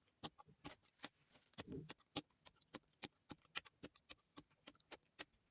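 Homemade jelly slime being squeezed and poked by hand, making a run of quiet sticky clicks and pops at an uneven pace, with one longer squelch about a second and a half in.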